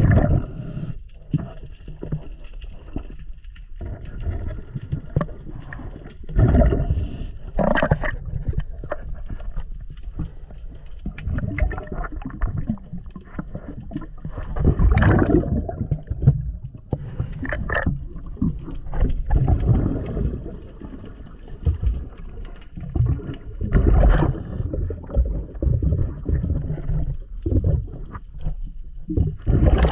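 A diver breathing through a regulator underwater: exhaled bubbles gurgle and rumble in loud bursts every few seconds, with quieter rushing between breaths.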